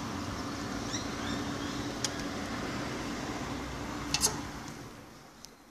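A steady mechanical hum with a few sharp clicks from the phone being handled. The hum fades away near the end.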